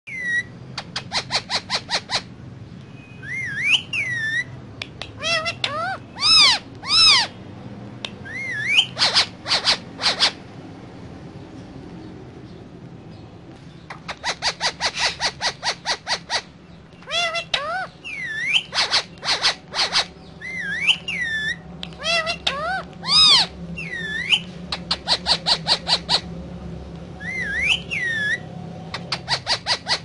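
Indian ringneck parakeet calling: bursts of rapid staccato chirps alternating with short rising-and-falling whistles, with a pause of a few seconds midway.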